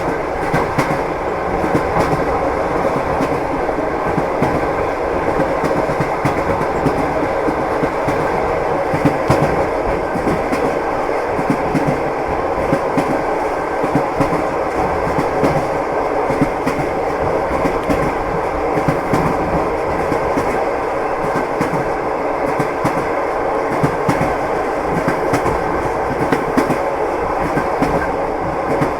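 Wheels of a moving train clattering over the rails: a steady running noise with frequent small clicks throughout.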